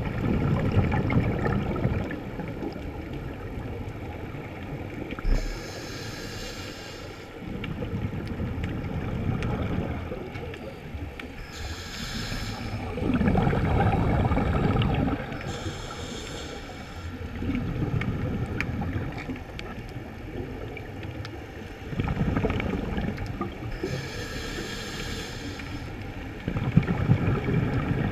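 Scuba regulator breathing underwater, heard through a camera housing: a short hissing inhale, then a low bubbling rumble of exhaled air, repeating every few seconds.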